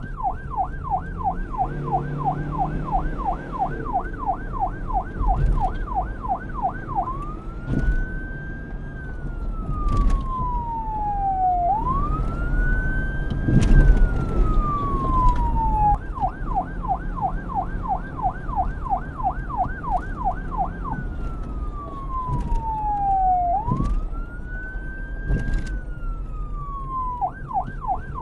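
Police car electronic siren alternating between a fast up-and-down yelp and a slow rising-and-falling wail: yelp for about seven seconds, two slow wail sweeps, yelp again around the middle, another wail, and back to yelp near the end, over a low road rumble.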